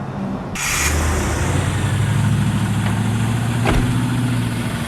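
A 2001 Chevy Silverado K1500's 4.8-litre V8 starting about half a second in and then running at idle with its accessory belts on. It carries a chattering noise that the owner traces to the AC compressor.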